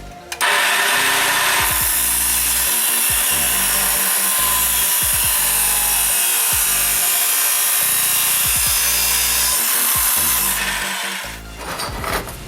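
A power tool working steel runs steadily for about ten seconds, starting half a second in and fading away near the end, over background music.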